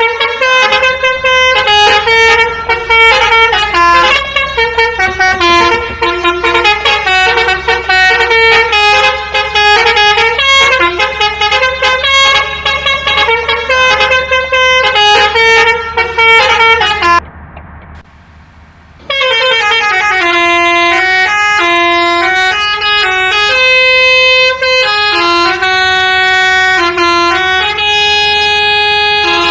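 Bus telolet musical air horn (Basuri type) playing a long string of tunes, note after note, with a break of about two seconds a little past halfway before it starts up again.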